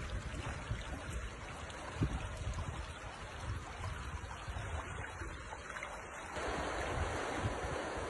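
River water rushing and splashing, with wind rumbling on the microphone. About six seconds in it switches abruptly to the brighter, hissier rush of water running over shallow rapids.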